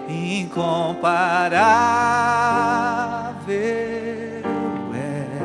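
Worship song in Portuguese: a singer holds one long note with vibrato over sustained keyboard chords, with shorter sung phrases before and after it.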